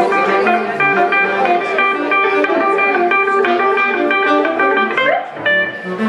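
Hollow-body electric guitar and saxophone playing a blues number live, the guitar picking a busy run of quick notes. About five seconds in, a note slides upward into a few longer held tones.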